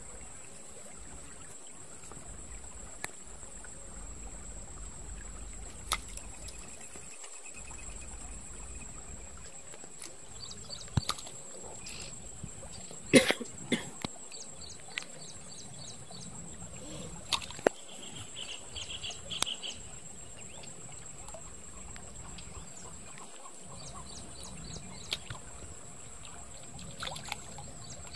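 Outdoor ambience at a small stream: water trickling, a steady high-pitched tone, faint bird chirps, and a few short sharp sounds, the loudest about halfway through.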